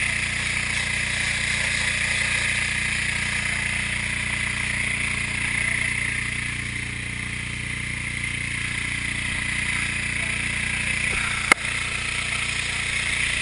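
Fire hose spraying a jet of water with a steady hiss, over a small engine running steadily. A single sharp knock near the end.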